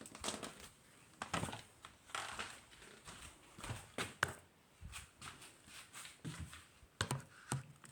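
Irregular light knocks, clicks and rustles, as of things being handled and moved about, with no vacuum motor running.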